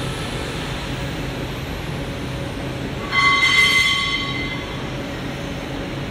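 Large-format fabric laser-marking machine running with a steady whir and low hum. About three seconds in, a brief ringing tone sounds and fades out over about a second and a half.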